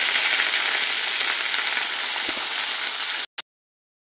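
Shredded cabbage and potato pieces sizzling loudly as they go into hot oil in a metal kadhai, a steady frying hiss that cuts off suddenly near the end.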